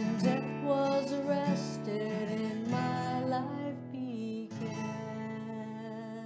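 Yamaha acoustic guitar strummed under a woman's sung melody, the closing phrase of a song, with a last strum about four and a half seconds in left to ring.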